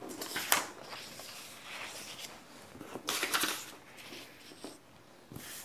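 Sheets of printed paper being turned over and shuffled on a table: a rustle near the start, a longer one about three seconds in, and a short one near the end.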